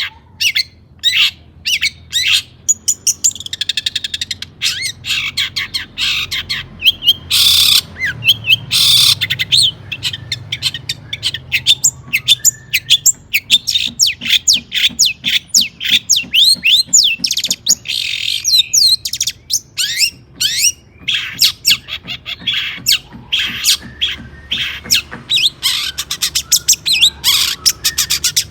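Long-tailed shrike (cendet) singing a fast, harsh chattering song of rapid high notes, with two short rasping screeches about eight and nine seconds in.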